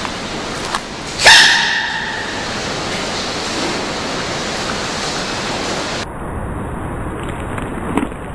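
Giant panda cub sneezing once about a second in: a single sudden, squeaky sneeze, the loudest sound here, over a steady hiss.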